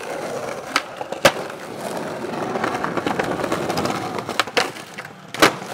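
Skateboard rolling over rough pavement, with several sharp clacks of the board: one about a second in and a couple more near the end.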